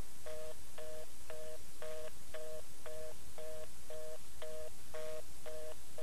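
Telephone fast-busy (reorder) signal: a two-note tone beeping about twice a second, over a faint low hum.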